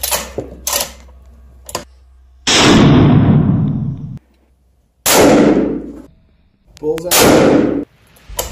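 Three high-powered rifle shots from a scoped bolt-action rifle fired inside a wooden shooting shed, about two and a half seconds apart, each with a long ringing tail that is cut off abruptly. A few sharp clicks come in the first two seconds.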